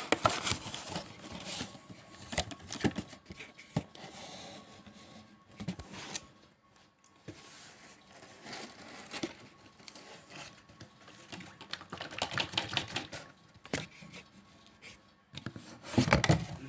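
A cardboard carton and a plastic bottle being handled as the bottle is pulled out of its box: irregular clicks and knocks, with a louder cluster near the end.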